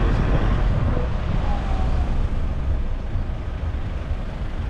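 A car driving along a road: a steady low rumble of road and engine noise with wind noise.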